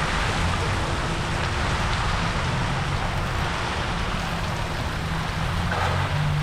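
Heavy rain pouring steadily, a dense even hiss, over a low rumble.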